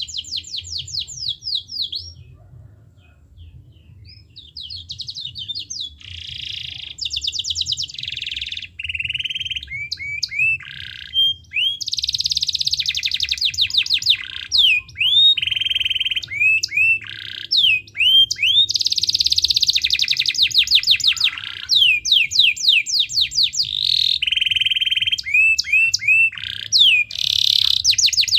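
Domestic canary singing a long song of fast trills and repeated rolling, sweeping phrases, with a short lull about two seconds in before it takes up the song again.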